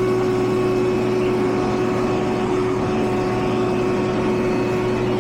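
Air-conditioning condenser unit running: a steady compressor hum with a fixed tone, under the even noise of the condenser fan.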